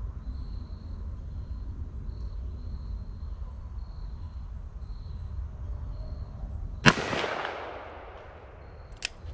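A single shot from a Ruger Blackhawk .45 Colt revolver firing a 255-grain lead Keith semi-wadcutter handload of about 900 feet per second: one sharp report about seven seconds in, with an echo that dies away over about a second and a half.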